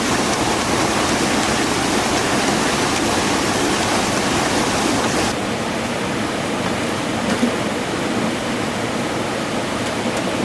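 Rushing water of a stream or waterfall: a steady, dense rush. About halfway through the high hiss drops away and the rush becomes somewhat softer.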